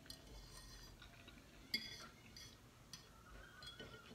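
Quiet chewing with a few faint clinks of a metal fork against a dish, the clearest a little under two seconds in.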